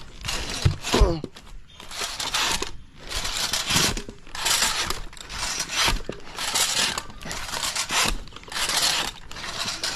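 Rhythmic rasping strokes of a saw cutting into a coconut tree, about one stroke a second.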